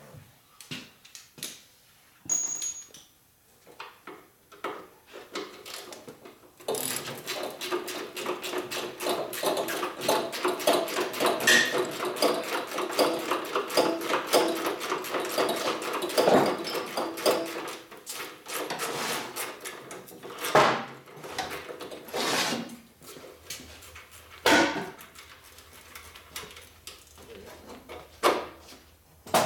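Hand ratchet wrench clicking rapidly and steadily for about eleven seconds as a bolt is run out. Separate sharp metal clanks of tools and parts come before and after it.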